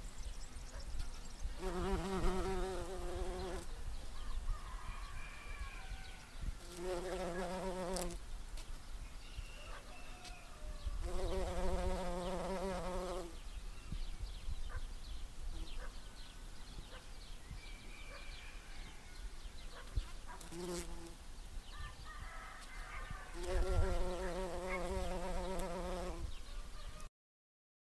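A bee collecting pollen, its wings buzzing in spells of one to two seconds, about five times, with pauses between as it lands on and leaves flowers. The sound cuts off suddenly near the end.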